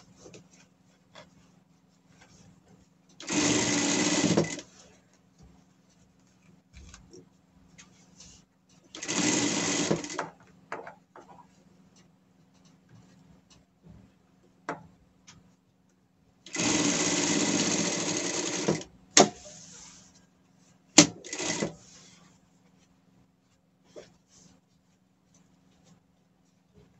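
Industrial lockstitch sewing machine stitching fabric in three short runs, the last the longest at about two seconds, with a low steady hum between runs. A few sharp clicks and short bursts follow near the end.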